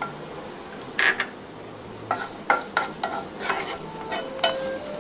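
Small onions sizzling in hot oil in a nonstick frying pan, stirred with a wooden spatula that scrapes and knocks against the pan. A sharp knock comes about a second in, then a quick run of knocks from about two seconds in.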